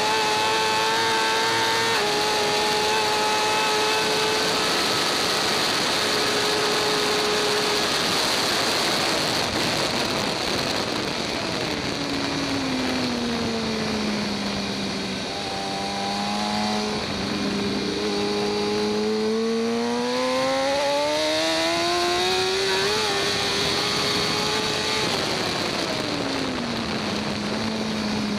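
2014 BMW S1000RR's inline-four superbike engine heard onboard at speed: held at high revs, then the revs fall away over a few seconds, sit low, climb steadily back up, and fall again near the end, as the bike brakes into corners and accelerates out. A steady wind rush on the microphone runs under the engine.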